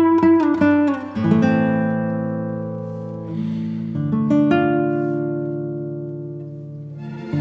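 Acoustic guitar music: a quick run of plucked notes, then a few strummed chords left to ring and slowly fade.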